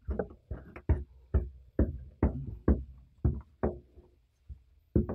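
Spatula knocking and scraping against a glass mixing bowl while stirring stiff scone dough, about two knocks a second, pausing about four seconds in before one more knock near the end.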